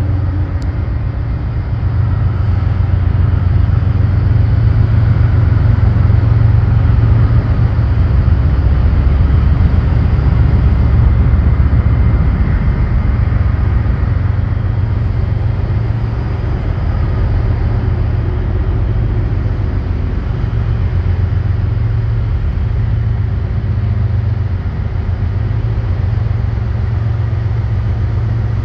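Steady low rumble of Norfolk Southern diesel freight locomotives approaching.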